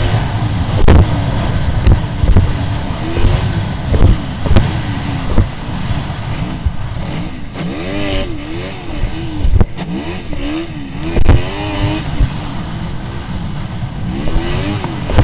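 Yamaha racing snowmobile engine revving up and down, its pitch rising and falling again and again as the rider works the throttle through the trail. Several sharp thumps break through, the loudest about a second in and about eleven seconds in.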